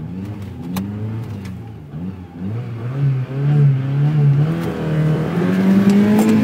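Ford Sierra Cosworth's turbocharged four-cylinder engine, heard from inside the cabin, revving up and down while held on the drag strip start line. Over the last few seconds the revs climb and the engine gets louder.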